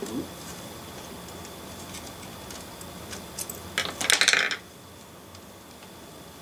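Small plastic and metal model locomotive parts clicking as they are handled, with a short clattering rattle about four seconds in.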